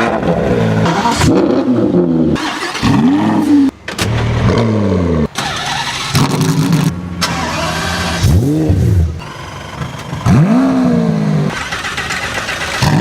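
High-performance supercar engines revving hard in short blips, the pitch shooting up and falling back about four times, with steady running between the revs. The sound drops out abruptly twice, as if cut.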